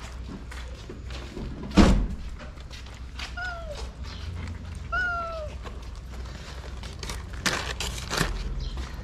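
A cat meows twice, two short calls about a second and a half apart. There is a loud thump about two seconds in, and a few clicks and taps near the end.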